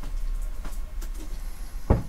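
Faint handling sounds of a roll of electrical tape being turned in the hands, over a steady low hum, with one short soft knock near the end.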